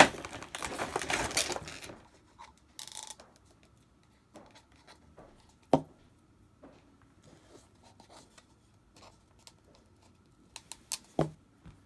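Stiff clear plastic clamshell packaging crinkling as Speed Stacks sport-stacking cups are pulled out of it, for about two seconds. Then mostly quiet, with a few light taps and two sharp clacks of the hard plastic cups being handled and set down, about six seconds in and near the end.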